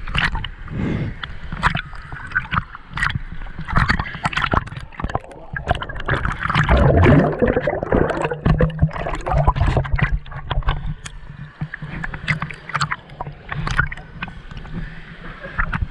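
River water sloshing, gurgling and splashing right at the microphone of an action camera held at the water's surface, with irregular slaps of water against the housing and a louder churning stretch about seven to eight seconds in.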